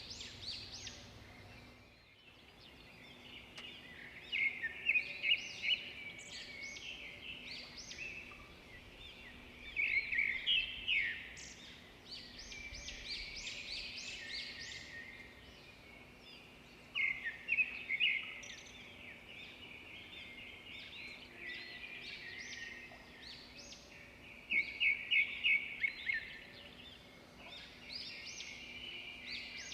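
Several birds chirping and singing. A louder song of rapid repeated notes comes back about every seven seconds.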